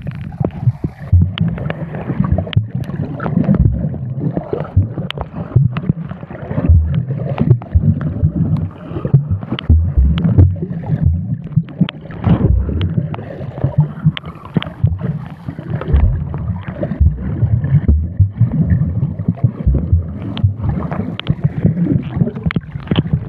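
Sea water sloshing and gurgling over a phone's microphone as it is swept under and out of the water by a swimmer. There is a loud, irregular low rumble with many short knocks and thumps.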